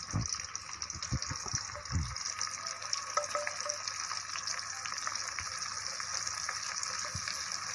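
Oil sizzling steadily in a kadai where boiled colocasia (taro) slices are frying, with a few low bumps in the first couple of seconds.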